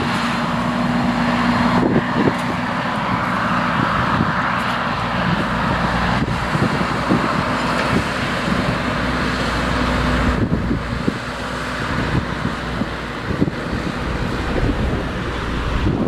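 Massey Ferguson 8480 tractor's six-cylinder diesel engine running steadily under load, pulling an eight-furrow reversible plough, with scattered rattles and knocks.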